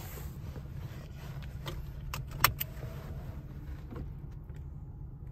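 Toyota Tacoma's engine idling with a steady low rumble inside the cab. A few sharp clicks come about two seconds in, the loudest near the middle, and fainter ticks follow later.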